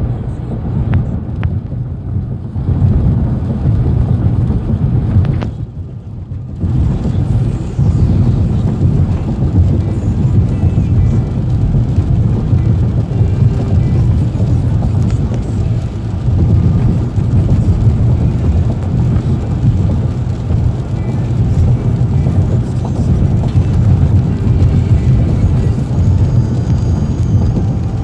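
Steady low rumble of tyre and road noise inside a vehicle's cabin while driving on a worn, jointed concrete-slab motorway. It dips briefly about six seconds in.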